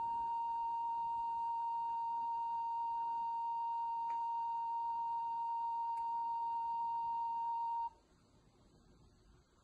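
Steady pure tone of about 1 kHz, the videotape line-up tone under the production slate at the head of a commercial master, played through a television's speaker. It cuts off suddenly about eight seconds in, leaving faint room tone.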